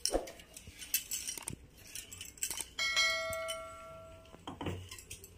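Soft knocks and scrapes of a steel bowl against a steel pot as batter is poured and scraped out. About three seconds in, a bright bell chime from a subscribe-button sound effect rings for about a second and a half and fades.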